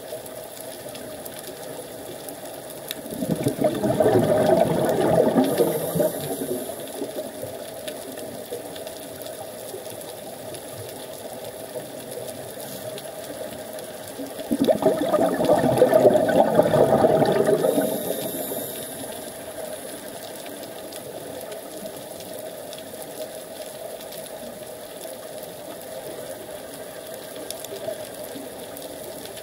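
Scuba diver breathing out through a regulator: two bursts of exhaled bubbles gurgling underwater, each about three seconds long and roughly ten seconds apart, over a steady underwater hum.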